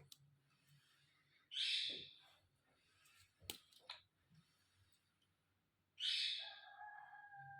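A short hiss and a couple of light clicks from plastic toy pieces being handled. Near the end comes another hiss, followed by a steady held electronic tone.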